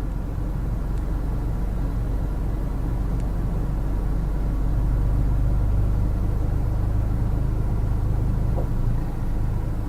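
Low, steady vehicle rumble that swells a little toward the middle and dips briefly near the end.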